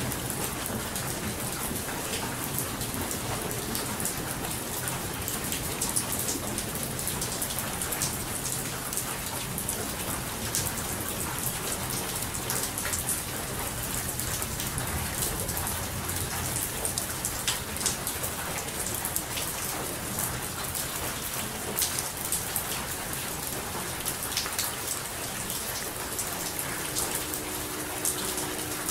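Steady rain falling, an even hiss dotted with the sharp ticks of single drops hitting a surface.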